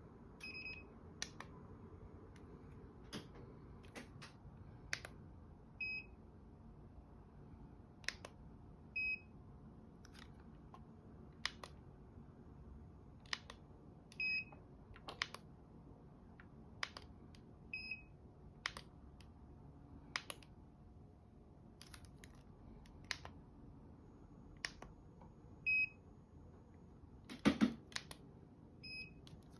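Short, high electronic beeps from a small sound-effect chip, sounding about seven times at uneven intervals of several seconds, among sharp clicks roughly once a second. A louder knock comes near the end.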